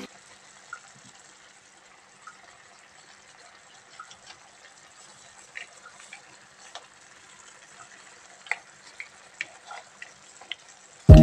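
Mussels simmering in broth in a nonstick frying pan: faint bubbling, with scattered light clicks as a plastic spatula moves the shells.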